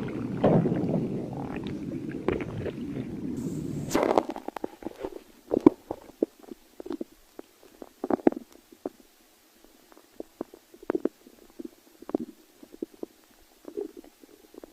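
Stomach growling: a long continuous low rumble for about the first four seconds, then a string of short, separate gurgles with quiet gaps between them.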